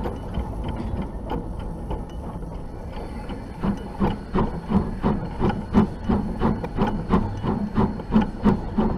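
Hunslet-built steam locomotive Y542 running slowly over light-railway track, heard from its front buffer beam: a rhythmic run of knocks and clicks from the engine and wheels with a steady hiss beneath, the beat growing louder and more regular about halfway in.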